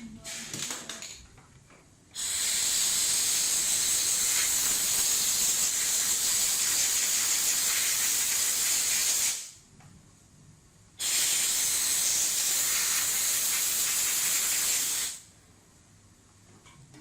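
Two long bursts of steady hissing from a pressurised jet, each starting and stopping sharply. The first lasts about seven seconds and the second about four, with a short pause between them.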